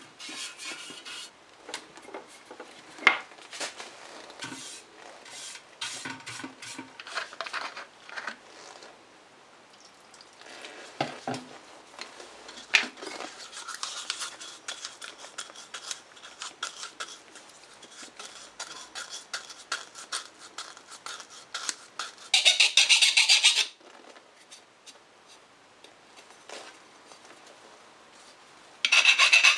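A paintbrush scraping and dabbing heat-resistant paint onto metal toaster plates in a steel tray, with small clicks and knocks, then the brush swirled and tapped inside a small cup of thinner. A short, loud, scratchy burst comes about three quarters of the way through, and near the end a loud, continuous, scratchy abrasive rubbing on a metal part begins.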